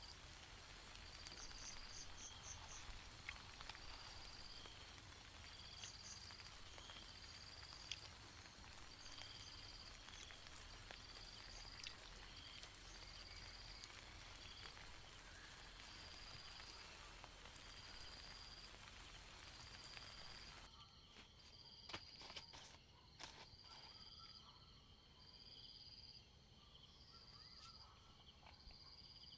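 Faint rain hiss with an insect chirping, a short high chirp repeating about once a second. About two-thirds in the rain hiss cuts off suddenly, leaving the chirping and a few faint drips.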